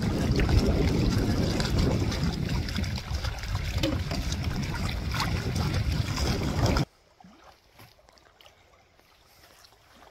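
Wind buffeting the microphone from a canoe on choppy lake water, a dense rumbling noise. It cuts off abruptly about seven seconds in, leaving much quieter outdoor ambience.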